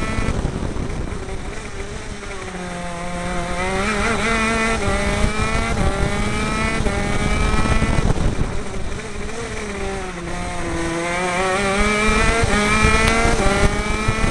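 Two-stroke 125cc KZ shifter-kart engine of a CRG KZ10 kart heard onboard: the revs fall twice, at the start and about halfway through, and climb back up after each, over steady wind and track noise.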